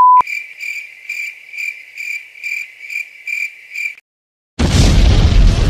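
Cricket-chirp sound effect: a steady high chirp pulsing about twice a second for about four seconds, then cut off abruptly. It opens with the tail end of a steady beep, and after a short silence a loud burst of rushing noise comes in near the end.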